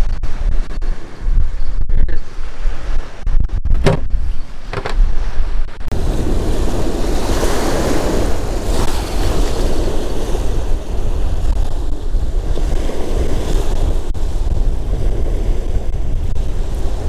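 Strong wind buffeting the microphone in low, gusty rumbles. About six seconds in, the sound switches abruptly to a steady rushing wash of wind and choppy water.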